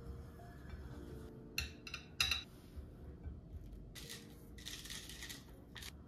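Tableware and food being handled on a ceramic plate: a few sharp clicks and clinks about one and a half to two seconds in, then brief scraping noises later on. Faint background music runs underneath.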